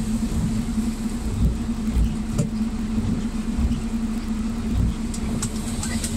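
Highway traffic passing on a wet, rain-soaked road, with tyres hissing through standing water and spray. A steady low hum runs underneath.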